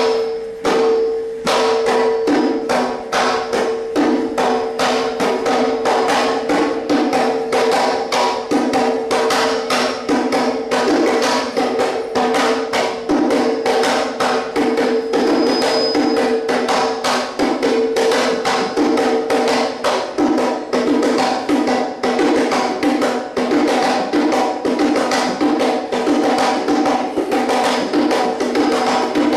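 Koodiyattam percussion accompaniment: fast, continuous, pitched hand drumming. A steady held tone sounds under the drumming until about twenty seconds in, then stops.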